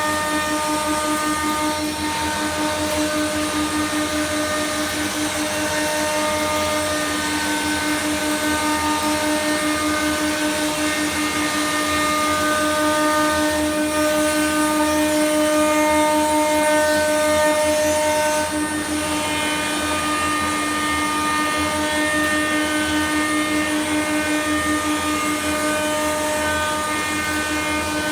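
CNC router spindle running at speed while its bit cuts a door. It makes a steady, pitched machine hum whose higher overtones come and go as the cut proceeds, with a brief dip about 18 seconds in.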